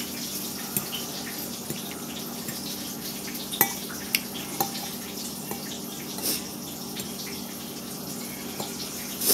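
Metal fork clinking and scraping against a glass bowl several times, the sharpest clinks about three and a half to four and a half seconds in. Under it runs a steady rushing noise with a low hum.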